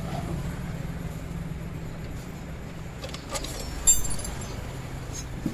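A few sharp metallic clinks of an Allen key working on the motorcycle disc brake caliper's pad-retaining bolts, about three to four seconds in, over a low steady hum.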